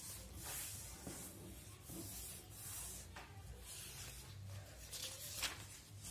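Sheet of lined notebook paper rustling and rubbing under the hands as it is pressed flat, picked up and opened out, with a few sharp crackles of the paper, two of them near the end.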